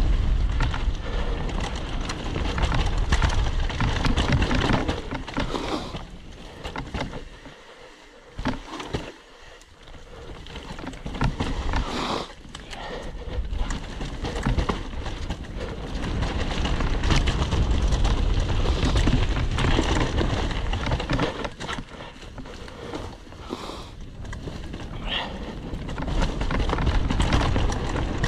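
Mountain bike descending a dirt forest singletrack: tyres rolling over dirt, roots and leaves, the bike rattling over bumps, and wind buffeting the camera microphone. It goes quieter for a few seconds about a third of the way in, then picks up again.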